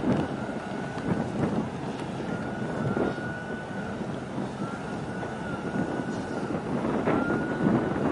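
Wind gusting on the microphone over a steady low rumble of harbour water and engine noise, with a faint thin high whine that comes and goes about four times, sliding slightly in pitch.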